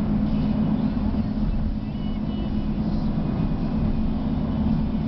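Steady drone of a moving car's engine and road noise, heard from inside the cabin.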